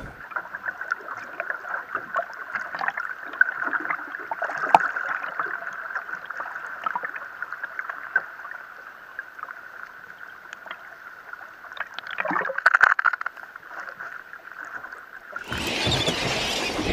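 Muffled underwater sound through a submerged camera: a steady high whine with scattered clicks and crackles, and a louder noisy rush about twelve seconds in. Near the end it switches abruptly to open-air wind and sea noise.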